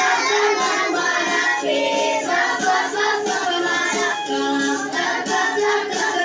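A children's song: a high, child-like voice singing over backing music with a steady melody.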